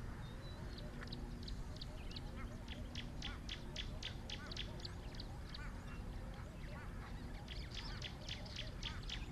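Wild birds calling: runs of short, sharp repeated notes, about four a second, in one run through the first half and another near the end, with softer chirps underneath. Steady low background noise runs beneath them.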